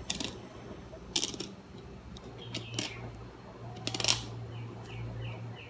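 Fillet knife scraping and slicing along a trevally's backbone on a plastic cutting board: a few short scratchy strokes about a second apart, the loudest about four seconds in. A low steady hum comes in about halfway.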